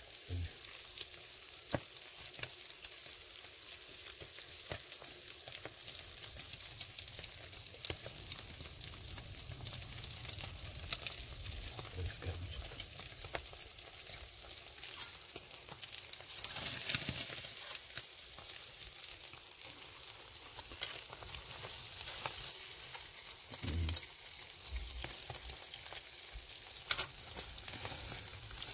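Whole fish sizzling on a flat-bar iron grill over very hot charcoal embers: a steady high hiss with many small crackles and pops.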